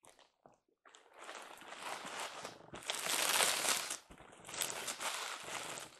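Plastic bubble wrap crinkling and rustling as a boxed item is slid out of it and lifted, with a few faint ticks first and the loudest crinkling around the middle.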